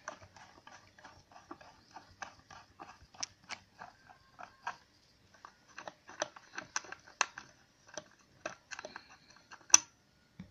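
Small screwdriver bit turning a screw out of a plastic power-adapter case: a long run of irregular small clicks, ticks and creaks, with one sharper click near the end.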